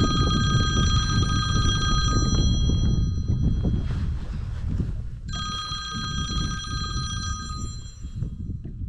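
A high, steady whine made of several tones at once, heard twice: for the first few seconds, then again from about five seconds in until shortly before the end. Underneath is a constant low rumble of wind on the microphone.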